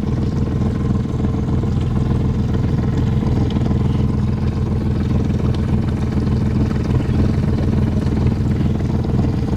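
Engine of a small boat running steadily under way, an even low hum.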